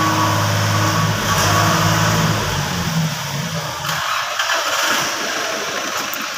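An engine running for about three seconds, then a rougher, noisier stretch.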